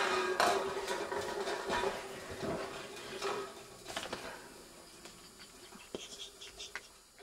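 Aluminium drink cans rolling and settling on a wooden floor after being knocked over, a rolling rattle that fades away over several seconds, with a few light metallic clinks later on.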